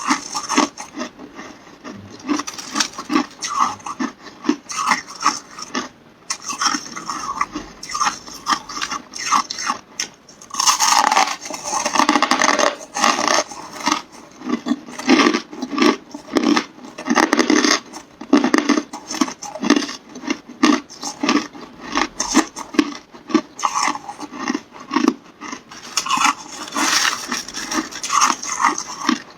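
Close-up crunching of hard carbonated ice being bitten and chewed: a continuous run of sharp cracks and crackles coming in uneven clusters, densest around the middle.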